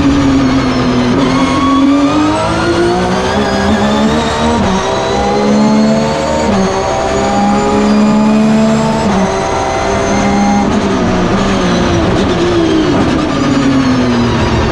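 Porsche 997 race car's flat-six engine at full throttle, heard from inside the cockpit: the pitch climbs through several quick upshifts, drops as the car brakes and downshifts, then picks up again near the end.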